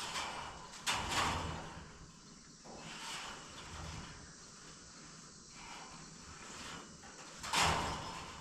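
A roll of chicken wire being pulled over a wooden frame, with the wire mesh scraping and rustling. There are louder scrapes about a second in and near the end.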